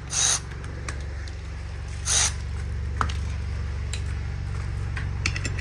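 Impact wrench firing two short bursts on beadlock ring bolts, one at the start and one about two seconds in, followed by a single sharp click, over a steady low hum.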